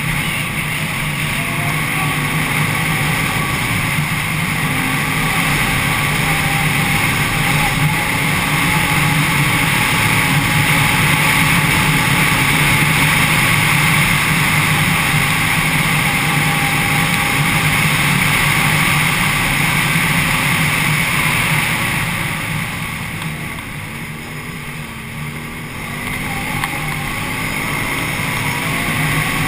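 Can-Am Renegade 800 ATV's V-twin engine running at speed on a dirt trail, the engine note steady, then easing off briefly late on before picking up again.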